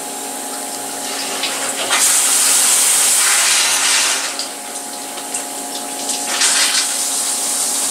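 Flood coolant spraying from a CNC milling machine's nozzles and splashing against the enclosure's glass: a steady rushing hiss with a steady hum beneath, louder for about two seconds from two seconds in and briefly again near the end. The flow is strong with a freshly changed coolant filter.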